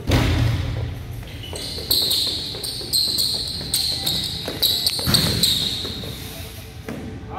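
Basketball shoes squeaking again and again on a gym floor during quick footwork, in short sharp chirps. A basketball thuds on the floor at the start, and there is another thud about five seconds in.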